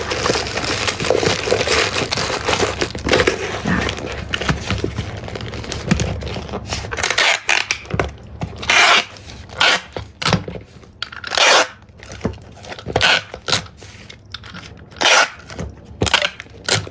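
Plastic-wrapped items rustling as they are packed into a cardboard box, then a handheld tape dispenser pulling packing tape off the roll and across the box in about seven short, loud rips over the last ten seconds.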